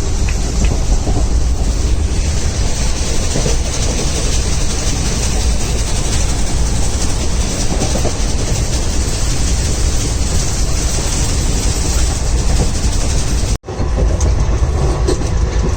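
Steady rumble and rattle of a moving passenger train, heard from inside the coach. About two seconds before the end it cuts out for an instant, then carries on.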